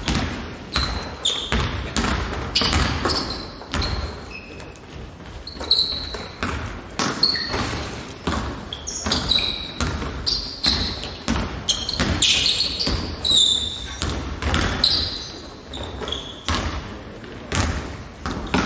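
Basketball being dribbled and bouncing on a hardwood gym floor, irregular thuds echoing in a large hall, mixed with short high sneaker squeaks as players cut and stop.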